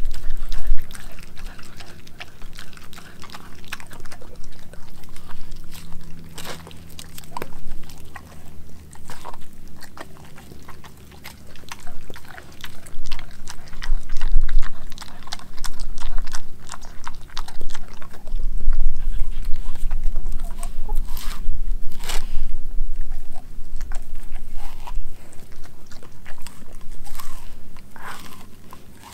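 German shepherd chewing raw meat on the bone close up, with repeated wet crunches and cracks as it bites through the bone.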